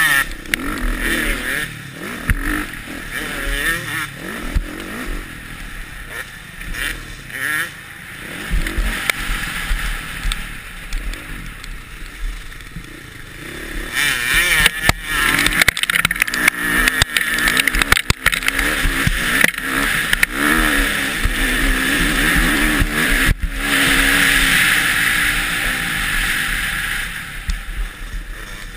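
Motocross bike engine heard from on board, revving up and falling back again and again as it is ridden hard, with wind rushing over the microphone and a few sharp knocks from the track's bumps.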